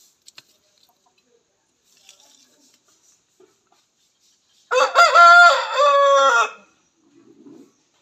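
Aseel rooster crowing once, a single crow of about two seconds starting a little past halfway, with only faint rustles and ticks around it.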